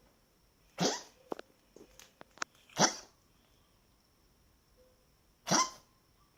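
A pet coughing three times, about a second in, near three seconds and near the end, with small sharp clicks between the first two coughs. It is part of a run of coughing fits that the pet cannot stop.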